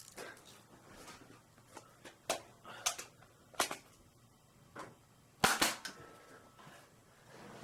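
Nerf blasters firing foam darts indoors: a string of sharp, irregularly spaced snaps, with the loudest cluster about five and a half seconds in.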